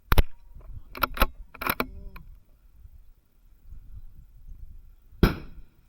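A CZ 457 Varmint rimfire bolt-action rifle being worked between shots: a sharp click at the start, then a run of metallic clicks as the bolt is cycled and the ejected case rings briefly. A single loud rifle shot follows a little after five seconds in.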